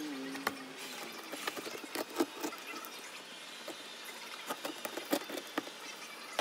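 A large knife cutting into a whole jackfruit's bumpy rind in a stainless steel sink: scattered, irregular crunching clicks and knocks, the sharpest about two seconds in.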